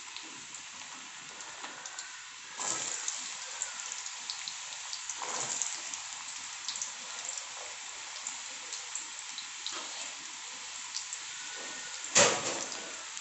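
Diced potatoes sizzling and crackling in hot oil in a steel kadai. The frying hiss grows louder as they go in about two and a half seconds in. Near the end comes a single sharp clatter, the loudest sound.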